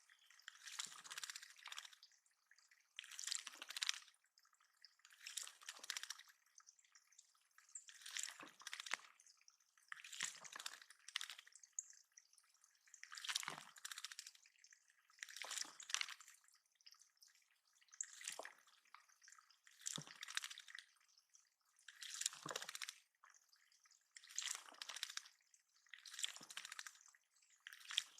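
Water splashing in the bird pond in short bursts, about one every two seconds.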